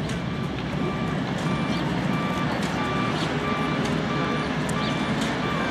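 Vehicle reversing alarm beeping steadily, about two beeps a second, over a steady low background rumble.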